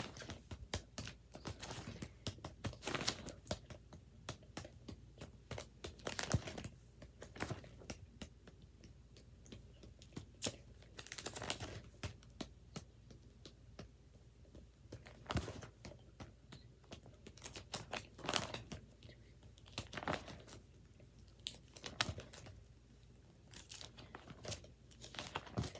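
Cardboard Squishmallow hang tags being handled and flipped through one by one as they are counted: irregular light rustling and crinkling with small sharp taps.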